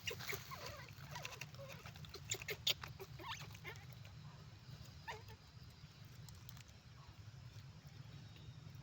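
Faint short squeaks and clicks from monkeys, scattered through the first half and thinning out, over a steady low hum.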